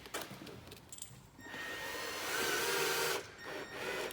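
Cordless drill running for under two seconds, starting about a second and a half in and cutting off, drilling a fixing hole for a side skirt.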